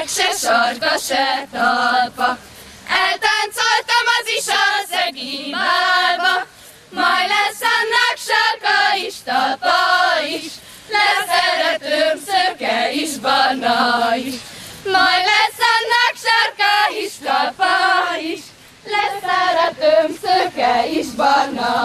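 A group of women singing a Hungarian folk song together, unaccompanied, in phrases with short pauses for breath.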